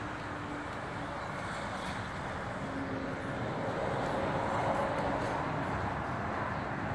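Steady road traffic noise from nearby cars, swelling a little about four seconds in as a vehicle passes.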